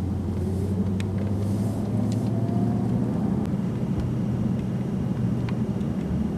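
Jeep SUV's engine and road noise heard from inside the cabin while driving: a steady low hum and rumble, with a faint rising tone in the first few seconds as it picks up speed.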